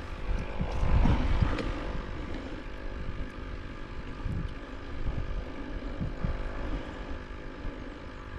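A distant engine droning steadily, with wind buffeting the microphone, strongest in the first couple of seconds.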